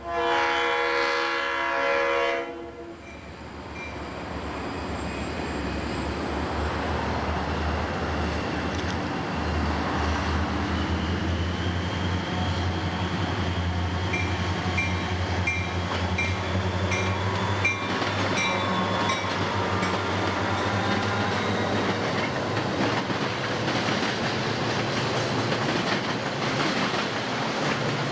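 Florida East Coast Railway freight train: a horn blast ends about two and a half seconds in, then the diesel locomotives grow steadily louder as they approach and pass, followed by autorack cars rolling by with wheel clatter on the rails.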